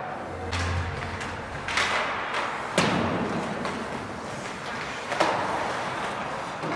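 Hockey play: four sharp knocks and thuds of stick and ball or puck impacts over steady game noise, the loudest about three seconds in.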